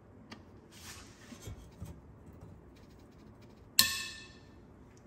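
A single sharp, ringing metallic ding about four seconds in, dying away within half a second, over a faint low background with a few light knocks.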